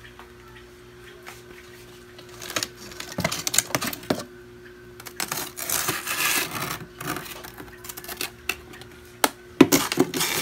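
Freezer door opened, then plastic containers and frozen packages rustling and knocking as an ice cream tub is pulled out, with the loudest knocks near the end. A faint steady hum sits underneath.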